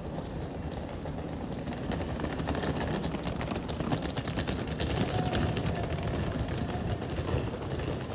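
Busy town-street ambience: a steady low rumble with many small clicks and clatter, louder in the middle.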